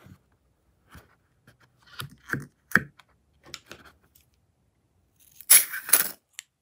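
Slime-filled rubber balloon being handled, with short scattered rubbery rustles and squeaks. About five and a half seconds in, scissors snip through the balloon's rubber tip in a couple of quick cuts; this is the loudest sound.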